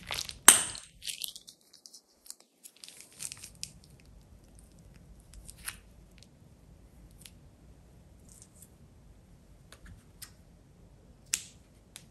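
Plastic piping bag crinkling and crackling as it is squeezed by hand. The crackles are scattered and sharp, with the loudest about half a second in and another near the end.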